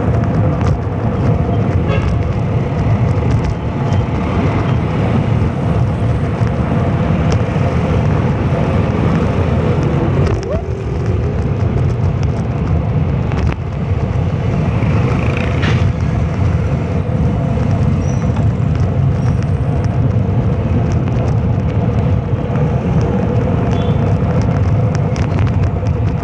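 Steady road noise from riding in an open vehicle: an engine running with heavy wind rumble on the phone's microphone.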